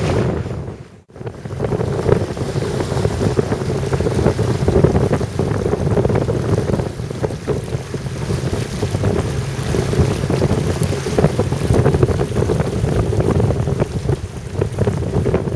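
Wind buffeting the microphone over the rush of water along a sailing yacht's hull as it sails through choppy water. The sound cuts out briefly about a second in.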